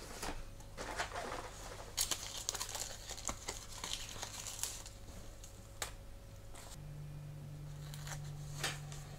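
Plastic packet of Eduard pre-cut masks crinkling and rustling as it is opened and handled, followed by scattered light clicks as the yellow mask sheet is picked at with tweezers. A low steady hum comes in about seven seconds in.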